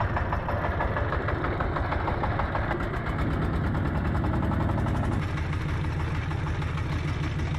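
A small fishing boat's inboard engine runs steadily with a fast, even chugging. About five seconds in its sound becomes lower and a little quieter.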